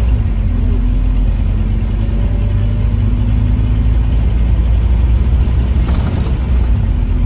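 Scania K230UB bus's engine and ZF automatic gearbox running steadily while under way, heard from inside the passenger saloon, with a short rattle about six seconds in.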